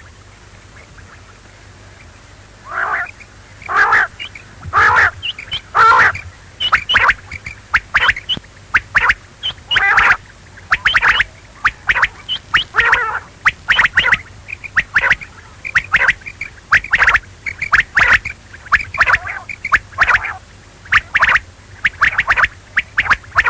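Quail calling: a fast run of short, harsh notes, several a second, beginning about three seconds in after a quiet stretch with a low hum.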